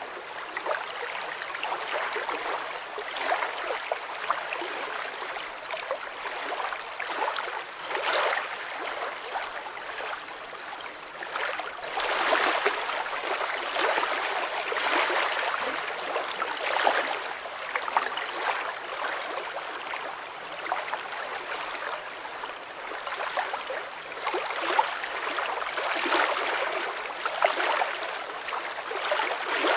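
Gently moving lake water, lapping and trickling in a steady patter of small splashes. It grows somewhat louder about twelve seconds in.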